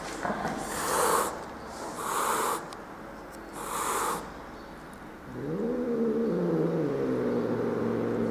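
Angry domestic cat hissing three times, about a second apart, then, from about five seconds in, a long low growl that rises in pitch and then holds steady.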